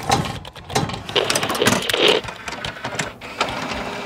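Intro sound effects: a run of rapid mechanical clicking and clattering with several louder swells.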